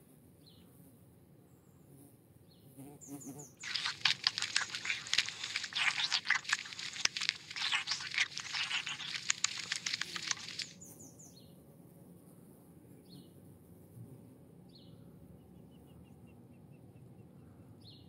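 Songbirds calling outdoors: a loud, dense stretch of chattering from about four seconds in to about eleven, then scattered short, high chirps.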